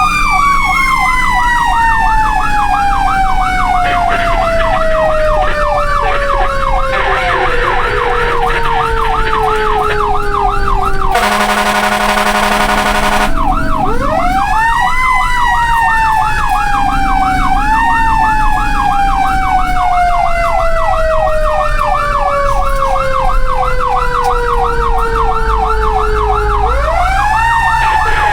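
Fire truck sirens sounding together: one slow wail that falls in pitch over about ten seconds, then rises again a few times, with a fast warbling siren over it. A two-second horn blast cuts in about eleven seconds in.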